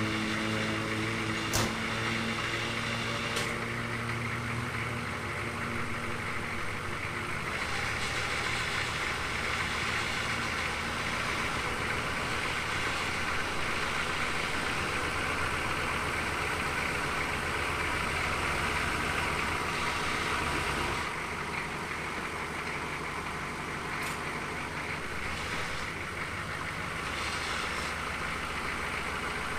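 An engine or motor running steadily, its sound changing slightly about twenty seconds in.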